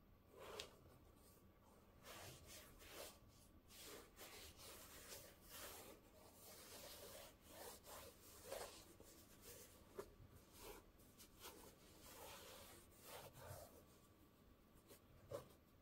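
Faint, irregular rustling and rubbing as sneakers and their packaging are handled, with a few soft taps.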